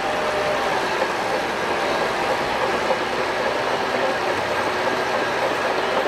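Shantui DH17 crawler bulldozer working as it pushes soil. Its engine and steel tracks make a steady heavy-machinery noise, with faint metallic squealing tones.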